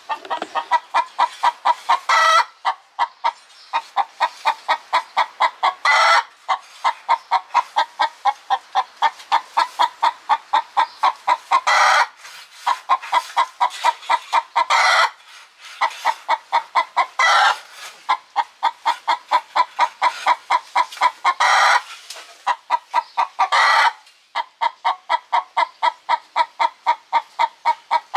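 A hen cackling loudly and without pause: rapid clucks, about five a second, broken every few seconds by a longer, louder squawk.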